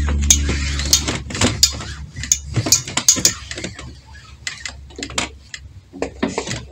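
Sewing tools being handled on a cutting table: a run of sharp clicks and light knocks that thins out after about three and a half seconds, over a low hum that fades away within the first second or two.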